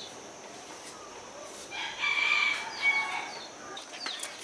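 A rooster crowing once, about two seconds in, the call lasting a little over a second. A few short high chirps sound around it.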